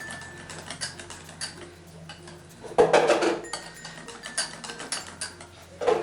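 Cake batter being mixed in a bowl: a mixing utensil scraping and clinking irregularly against the bowl, loudest in a cluster of strokes about halfway through and again near the end.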